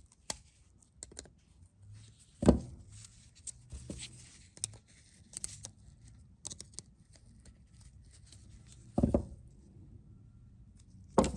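Snap-ring pliers and small metal valve parts being handled on a towel-covered bench. Scattered light clicks and soft rustling, with a sharp click about two and a half seconds in and two knocks near the end as parts and pliers are set down.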